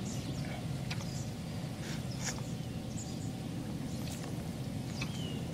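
Steady outdoor background hum by a river, with a few faint short bird chirps and small clicks over it.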